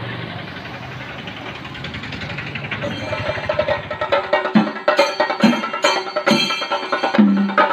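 Kerala chenda drums played by a group of walking drummers: fast, dense stick rolls that grow louder, joined about halfway by heavy, deep strokes roughly once a second.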